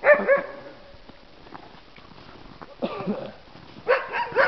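Sled dogs yelping and barking in a loud volley at the start, with more calls about three seconds in and again near the end.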